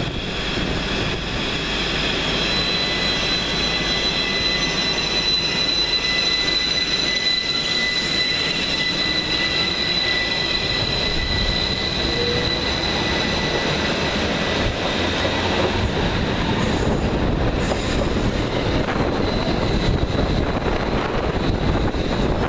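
Northern Rail Class 333 electric multiple unit running past at close range, with a continuous rumble of wheels on rail. A steady high-pitched tone rides over it for roughly the first half, then fades.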